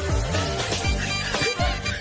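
Music with several quick falling pitch swoops that drop down into the bass.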